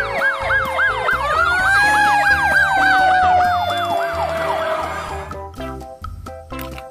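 Fire engine sirens: a fast warbling yelp over a slow wail that rises to a peak about two seconds in and then slowly falls, both cutting out about five seconds in. Background music runs underneath.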